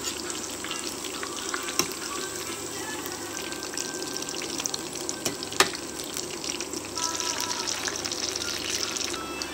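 Chicken tenders, spring rolls and French fries deep-frying in hot oil in a stainless steel pot: a steady crackling sizzle of bubbling oil, with two sharp clicks about two and five and a half seconds in. The sizzle grows denser and brighter about seven seconds in.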